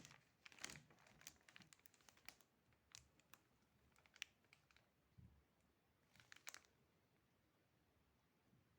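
Faint scattered clicks and crinkling ticks, irregular, stopping about seven seconds in.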